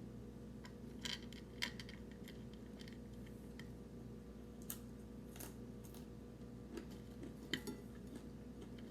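A few faint, scattered clicks and clinks of small hard objects being handled, over a steady low electrical hum.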